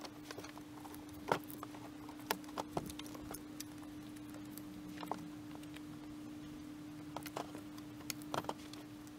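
Scattered light clicks and taps of hands and tools working on the engine's accessory drive while the auxiliary belt is fitted, over a steady faint hum.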